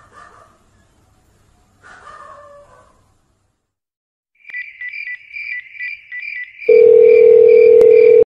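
Telephone line tones: a pulsing high electronic beep, about three pulses a second, joined about two seconds later by a loud steady low tone, both cutting off suddenly.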